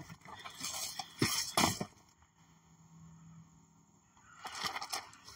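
Shoes shifting on gravel and objects being handled at an open car door: a run of short crunches and clicks, quiet for a couple of seconds in the middle, then more clicks near the end.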